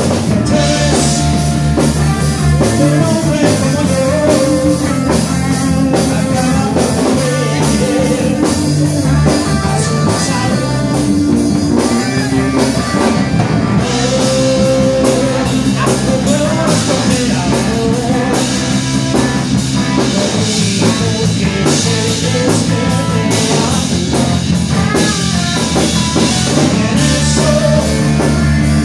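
Live rock band playing a song: a male singer over electric guitar, electric bass and drum kit, with a steady driving beat.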